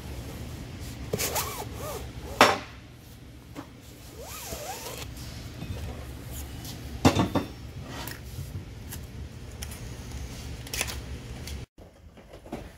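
Steel rear axle shaft and its wheel flange being handled on a steel workbench: a few sharp metal knocks and clinks, the loudest about two and a half seconds and seven seconds in, with light rubbing and short squeaks between, over a steady low shop hum.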